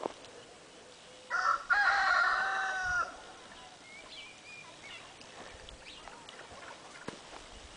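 A rooster crowing once, about a second and a half in: a short first note then a long held one that drops at the end, with faint small-bird chirps afterwards.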